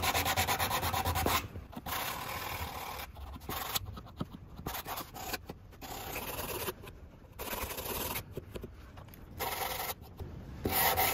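Sandpaper on a cork sanding block rubbing back and forth across a windsurf fin, sanding down a UV-resin repair fill. Quick continuous strokes at first, then shorter bursts of strokes with brief pauses between them.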